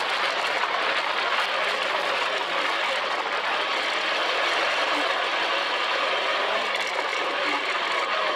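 Sand rail dune buggy's engine running steadily as it drives over sand dunes, mixed with a steady rush of wind noise.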